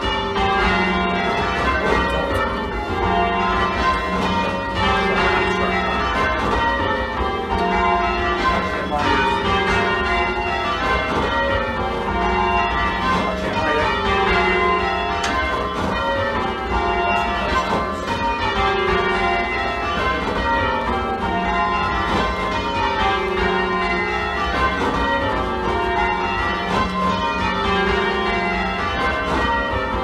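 Ring of eight full-circle church bells (15 cwt tenor in F, back six cast 1815–16, two trebles added 1930) ringing rounds, the eight strikes falling from treble to tenor in a steady repeating descending row.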